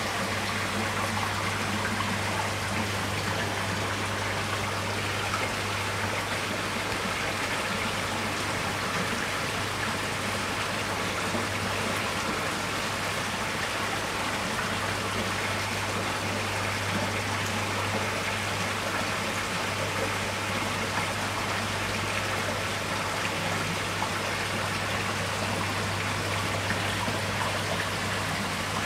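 Water bubbling and trickling steadily in an aerated fish tub, over a steady low hum.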